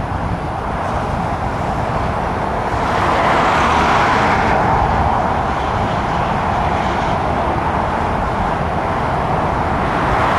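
Road traffic passing close by, a steady rush of tyre and engine noise that swells about three seconds in and again near the end.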